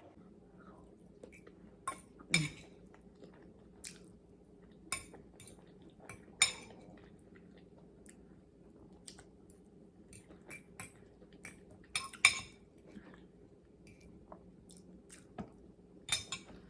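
Someone eating a meal: cutlery clinking and scraping on a plate every second or two, with quiet chewing between, over a faint steady hum.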